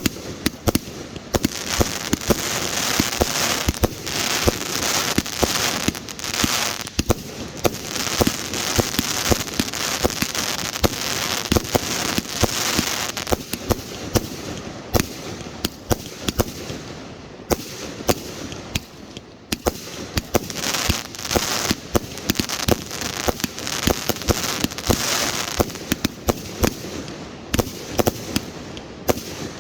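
Fireworks display: a rapid, continuous run of sharp bangs and pops, with waves of crackling that rise and fade every couple of seconds.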